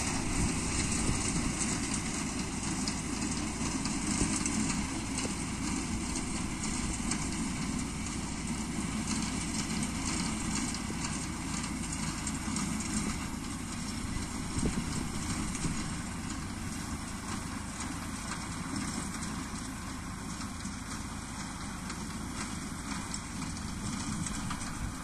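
Tractor engine running while its front-mounted reaper-binder cuts standing grain, with a dense, rapid clatter from the cutter bar and binding mechanism over the engine. It grows a little fainter as the tractor moves off.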